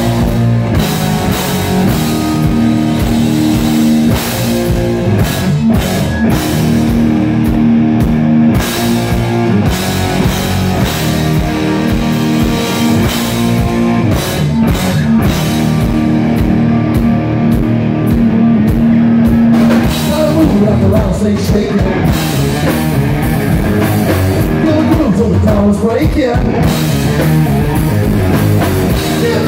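Live rock band playing loud: distorted electric guitars, bass guitar and drum kit, with a held, sustained guitar sound over a steady beat.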